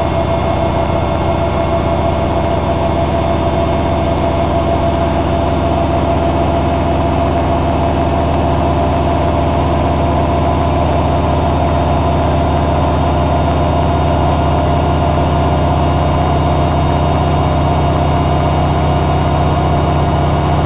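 Hoover Logic 1200 washing machine spinning steadily: a continuous motor hum with a thin high whine, growing slightly louder.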